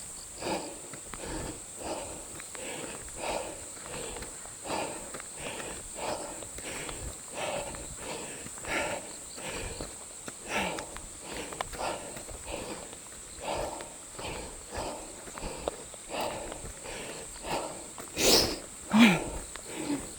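A runner's heavy, rhythmic breathing as they run uphill, about one breath every two-thirds of a second, over their footsteps. There are louder breaths near the end.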